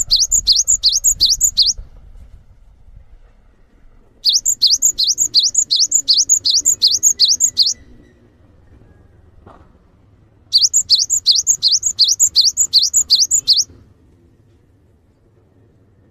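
Cinereous tit (gelatik batu) singing: three bouts of a fast series of repeated high, sweeping whistled notes, about four a second, each bout lasting two to three seconds with pauses of a few seconds between.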